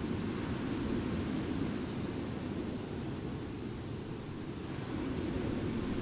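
Calm sea waves washing onto a beach: a steady low wash that swells gently about a second in and again near the end.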